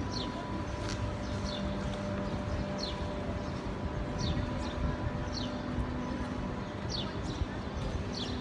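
A small bird repeating a short, falling chirp about once a second, over a steady low rumble and a faint machine hum.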